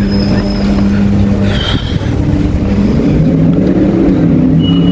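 Street traffic: car engines running and passing, their pitch shifting up and down as they change speed, with a few brief high-pitched squeaks.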